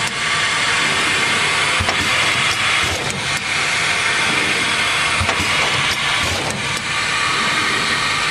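Mondial Pack MV100 Super Stabilo packaging machine running: a steady mechanical hiss and whir with occasional sharp clacks from its moving parts.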